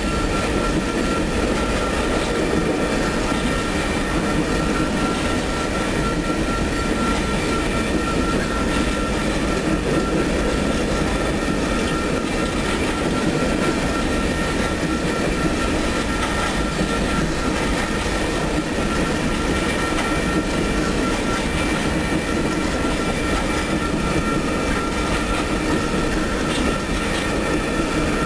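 Empty coal cars of a freight train rolling past: a steady rumble and rattle of steel wheels on the rails, with a thin, steady high ringing over it.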